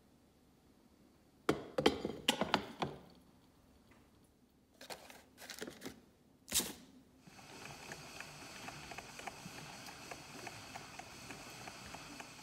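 Drip coffee maker being loaded: a run of plastic clatter and paper-filter rustling, then a single sharp click as the lid shuts. After that comes a steady hiss with fine crackling as the machine starts to brew.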